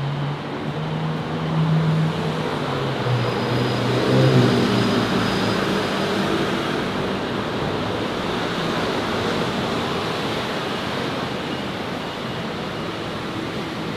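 Road traffic: a motor vehicle's engine hum passing close, loudest about four seconds in, over a steady hiss of tyres and street noise.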